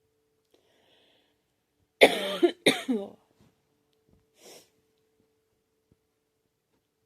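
A girl coughing twice in quick succession about two seconds in, each cough short and sharp, followed a moment later by a faint breath.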